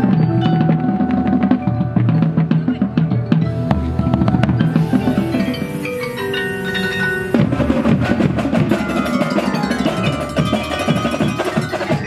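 A percussion front ensemble playing marimbas and other mallet keyboards with cymbals: a dense stream of struck, ringing notes over low sustained tones. About halfway through a sudden accent sets off a flurry of fast notes.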